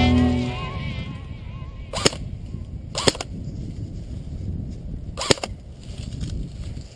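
Three sharp airsoft gun shots, spaced about a second and two seconds apart, over low wind rumble on the microphone.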